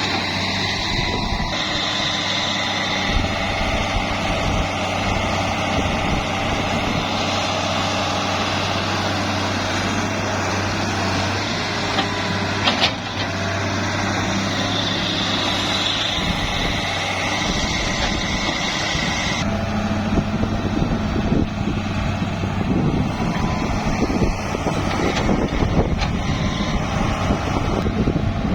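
Diesel engines of a mini excavator and dump truck running steadily, with a high steady whine over the engine hum that stops about two-thirds through, after which the engine sound turns rougher and a little louder.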